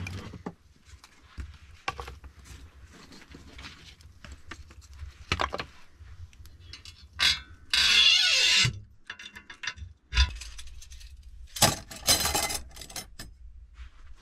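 A metal stove door being handled and fitted over the firebox opening of a wood stove: scattered metallic clinks and knocks, with a loud scrape of metal on metal, sliding in pitch, at about eight seconds and a run of sharp clinks a few seconds later.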